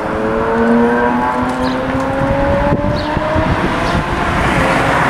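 A car engine accelerating, its pitch climbing steadily, over wind rumble on the microphone.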